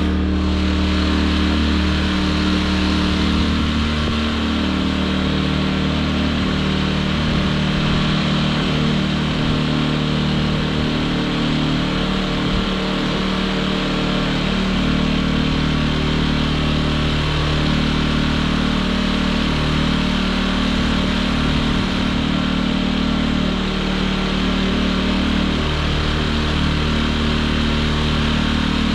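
Champion inverter generators running steadily with the fuel turned off, burning off the last fuel in their carburetors before they die.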